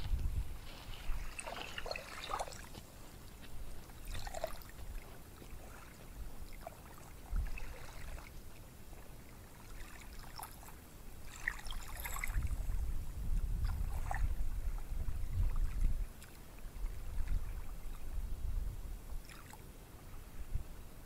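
Small sea waves washing onto a beach, with a low rumble that swells louder from about twelve to sixteen seconds in, and scattered faint short higher sounds over it.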